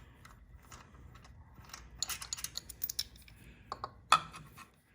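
Light metallic clicks and rattles of a loosened bolt and small engine parts being handled and taken out by hand, with one sharper knock about four seconds in.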